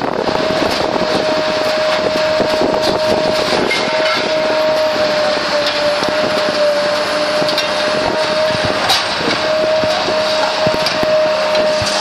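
Factory shop-floor din: machinery running with a steady whine over a dense noise, and frequent knocks and clanks.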